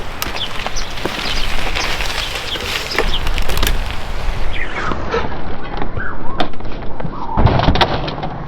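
Specialized Stumpjumper 15 mountain bike being ridden on dirt: steady tyre noise with frequent clicks and knocks from the bike rattling over the ground.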